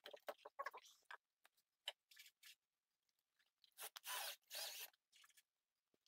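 Faint clicks and knocks of a metal mortise lock body being handled, then two short scrapes about four seconds in as it slides into the door's mortise.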